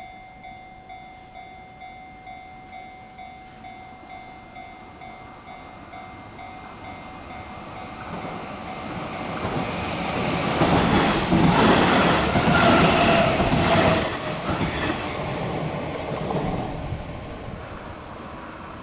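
Japanese level-crossing alarm dinging in a steady rhythm while a Hanshin Railway electric train approaches and passes, its wheels clattering over the rails. The train grows loud about halfway through, is loudest for a few seconds, then fades away.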